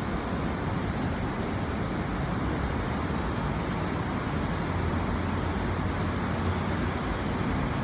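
Steady rushing noise with a low rumble underneath, a little stronger a little past the middle.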